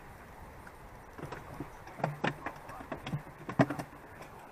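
Fishing tackle handled in an inflatable PVC boat: a run of clicks and knocks starting about a second in, with short low hums between them, as the spinning reel on the rod is worked.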